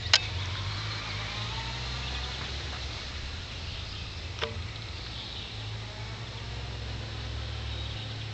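Outdoor ambience with a steady low rumble on the microphone and a faint even hiss, broken by a sharp click just after the start and a weaker one about four and a half seconds in.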